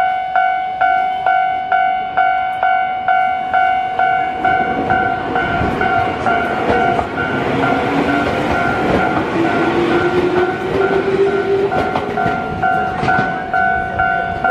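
Japanese level-crossing warning bell ringing steadily, about twice a second. A Tokyu 7000 series train passes from about four seconds in, with a rush of wheel and rail noise and its traction motors' rising whine as it accelerates away.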